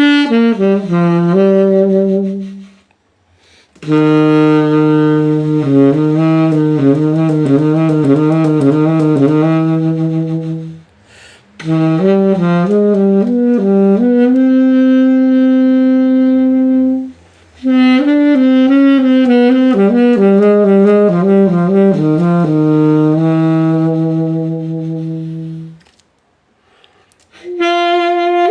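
Reed wind instrument played with a homemade reed cut from PVC pipe, in four phrases of quick runs and long held low notes, broken by short pauses.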